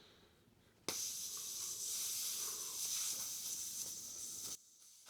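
Air hissing out of an electric unicycle's tubeless tire as the valve pin is held down to deflate it. The hiss starts suddenly about a second in and cuts off sharply near the end when the pin is released.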